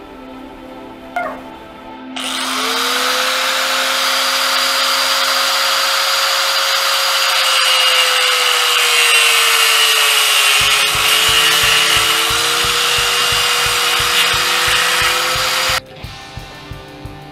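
Small handheld power saw with a round blade spinning up and cutting PVC pipe. Its pitch sags slightly under load partway through and recovers, then the sound cuts off abruptly near the end. Background music plays underneath.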